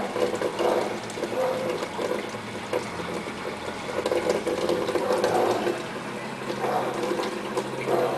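Brastemp top-load washing machine running with water sloshing and flowing in the tub, in uneven swells over a steady motor hum.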